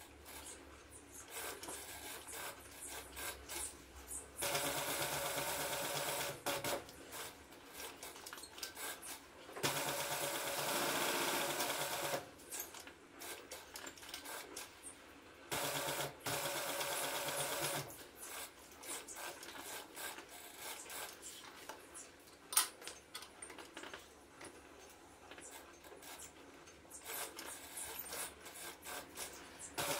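Industrial post-bed sewing machine stitching alligator-leather card holders in three runs of two to three seconds each. Between the runs there are small clicks and handling noises, and one sharp click about two-thirds of the way through.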